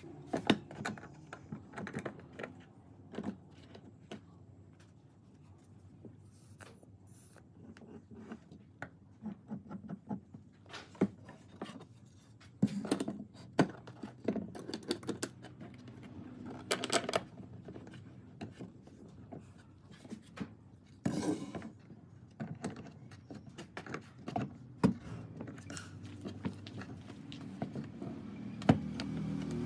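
Wooden battens set into right-angle corner clamps on a wooden workbench: scattered clicks and knocks of wood against the clamp jaws and the tabletop, with a few sharper knocks along the way.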